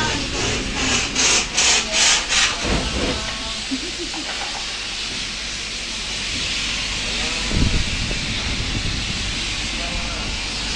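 Hand saw cutting wood: a quick run of about six rasping back-and-forth strokes in the first two and a half seconds, then a steady hiss of work-site noise with a single thump about two-thirds of the way through.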